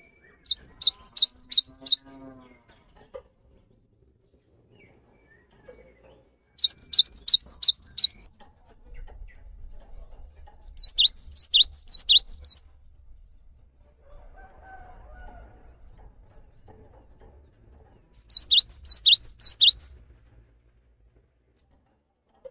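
Cinereous tit (gelatik batu) singing: four bursts of high, sharp notes repeated about four times a second, each burst lasting about two seconds, with pauses of several seconds between them.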